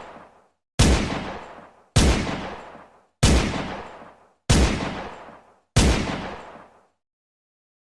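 Five single gunshots from a light firearm, about one every 1.2 seconds, each with a long echoing tail. The tail of an earlier shot fades out at the start.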